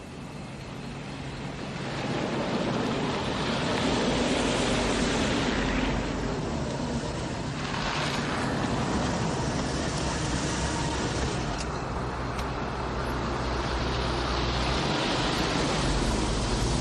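Cars driving past on a street, the rushing engine and tyre noise swelling and fading several times as they go by, over a low rumble.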